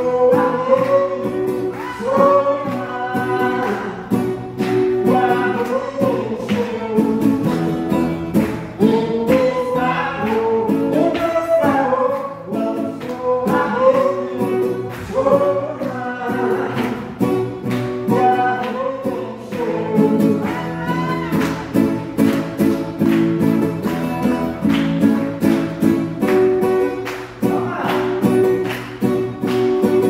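A man singing a song while strumming an acoustic guitar in a steady rhythm, his voice amplified through a microphone.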